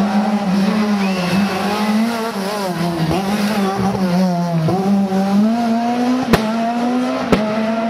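Škoda Fabia S2000 rally car's 2.0-litre four-cylinder engine working hard through a tight roundabout. The engine note dips twice as it slows and turns, then climbs steadily as the car accelerates away. Two sharp cracks come in the second half.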